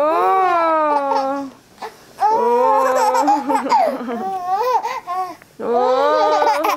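Baby babbling and laughing in three long, drawn-out vocal runs with short pauses between, while mouthing a wet cloth.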